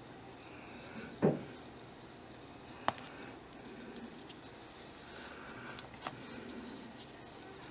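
Faint handling of a polymer clay figure as a finger rubs metallic pigment powder over it, with a soft thump about a second in and a single sharp click a little later.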